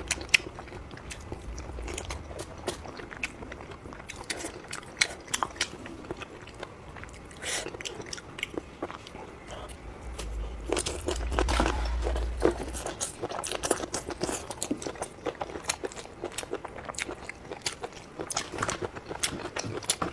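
Close-miked eating: a person biting, crunching and chewing food in a string of sharp crisp clicks, busiest and loudest about halfway through.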